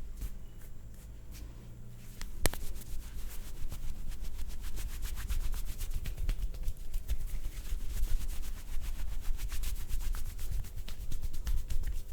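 Hands rubbing fast over skin in a vigorous massage, with rapid, dense strokes. A single sharp click comes about two and a half seconds in, and the rubbing gets louder from there.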